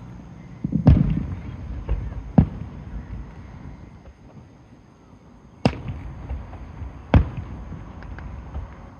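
Aerial fireworks shells bursting: four sharp booms, about a second in, at two and a half seconds, near six and near seven seconds, with a few smaller pops between, each followed by a rumbling echo.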